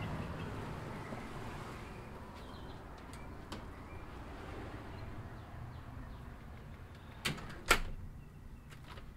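Low rumble of hotel machinery that fades over the first couple of seconds and settles to a low hum, then two sharp knocks about half a second apart near the end, the second the louder.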